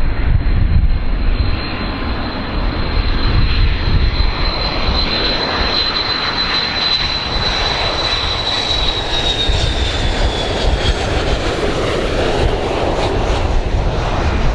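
Boeing 727 tri-jet on landing approach, its three rear-mounted Pratt & Whitney JT8D engines making a steady jet noise over a deep rumble. A thin high whine holds, then slides down in pitch about nine seconds in and fades as the jet passes.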